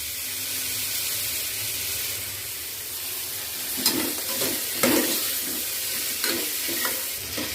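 Chopped onion, ginger and garlic sizzling steadily in hot oil, stirred in the pan, with the utensil scraping the pan a few times in the second half.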